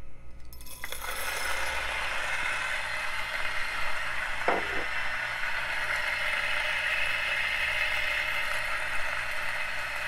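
DF64 Gen 2 single-dose flat-burr coffee grinder starting about a second in and grinding an 18 g dose of espresso beans with a steady, even grinding noise.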